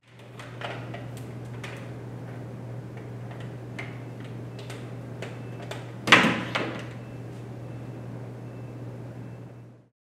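A hair dryer and its power cord being handled in a washbasin: small clicks and knocks of the plastic cord and plug, then a loud clatter of the dryer's plastic body against the basin about six seconds in, over a steady low hum.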